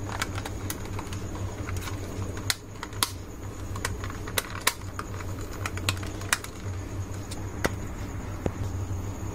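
Irregular light clicks and taps of hard plastic as a toy car's body shell is handled and pressed back onto its chassis, over a steady low hum.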